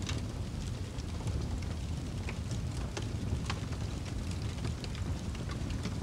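Fireplace fire burning: a steady low roar of flames with scattered sharp crackles and pops, a few each second.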